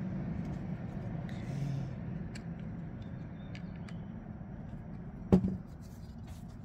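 Faint small clicks of a precision screwdriver working the screws of a Vosteed PsyOps folding knife to loosen its action, over a steady low background hum. About five seconds in comes one sharp, loud click.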